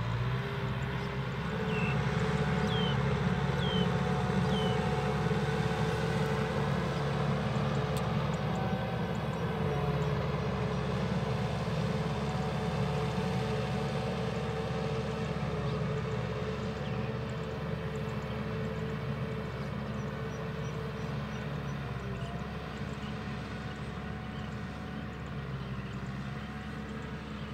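Tractor engine running steadily under load while pulling a plough through a wet paddy field, heard from a distance and slowly growing fainter after the first several seconds. A few short high chirps sound a few seconds in.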